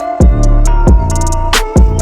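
Electronic beat-driven background music: deep bass notes that drop in pitch on each beat, rapid hi-hat rolls and a held synth melody.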